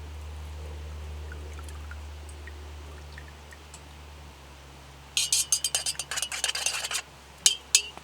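Hard tableware (glass or metal) clinking: a quick rattling run of ringing clinks about five seconds in, then two or three single sharp clinks near the end, over a steady low rumble.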